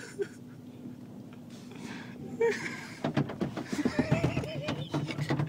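Bumps, knocks and rustling of people clambering around inside a pickup truck's cab, thickening in the second half, over the steady low drone of the automatic car wash running outside.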